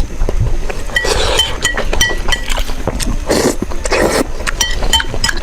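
Close-miked eating: chewing and slurping with wet mouth clicks, and several short, light clinks.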